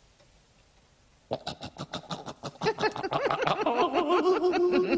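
A man and a woman giggling in quick, wavering bursts, starting about a second in after near silence.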